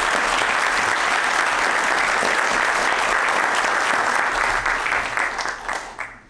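Audience applauding, steady for several seconds and then dying away near the end.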